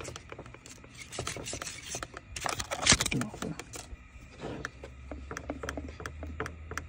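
Irregular light clicks and rattles as a replacement alternator's pulley is turned back and forth by hand, the pulley freewheeling one way on what is taken for a one-way bearing. A louder scrape comes about three seconds in, and a low hum starts about halfway through.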